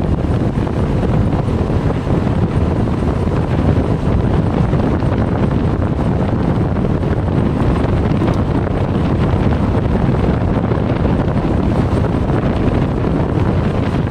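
Steady, loud rush of wind on the microphone and road noise from a car being driven, with no distinct brake squeal standing out.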